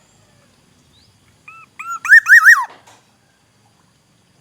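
Black-naped oriole giving a short fluty whistled phrase: two soft arched notes, then a loud quick run of three or four looping notes that falls away, about two seconds in.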